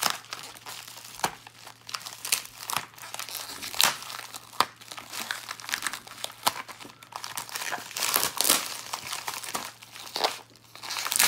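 A white envelope and the plastic wrapping inside it crinkling and rustling in irregular crackles as hands pull the packaging open.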